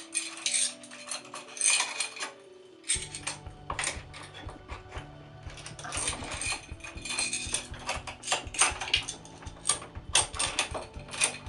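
Metal clicks, clinks and rattles of a portable door lock's parts and chain being handled and fitted together at the door. A steady low hum comes in about three seconds in.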